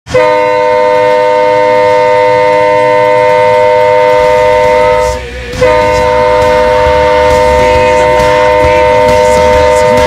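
Dubuque Fighting Saints' ice-hockey goal horn, a multi-tone chord horn, sounding two long, steady blasts of about five seconds each, split by a brief break just after five seconds in.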